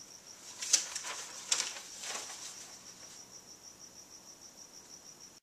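Sheets of paper being handled and shuffled on a desk, with two sharper crinkles in the first two seconds and rustling that fades out about three seconds in. Under it runs a steady, rapidly pulsing high-pitched chirp like a cricket's.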